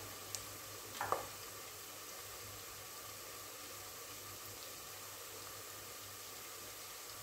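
Garlic frying in oil in a pot on the stove, a faint steady sizzle, with a short knock about a second in.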